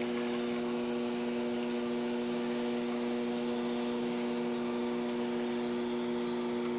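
Electric potter's wheel running, its motor giving a steady, even hum.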